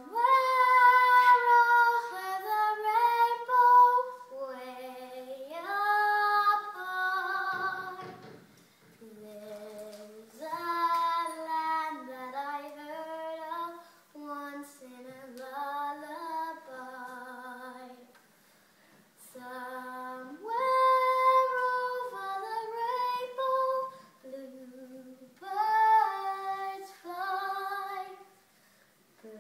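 A young girl singing a slow melody on her own, in phrases with short breaks between them.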